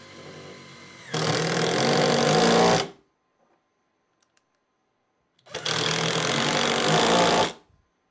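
Brushed 20 V cordless impact driver driving thin lag screws into wood. It runs quietly for about a second, then the impact mechanism hammers loudly for nearly two seconds. After a pause of about two and a half seconds, a second drive hammers loudly for about two seconds.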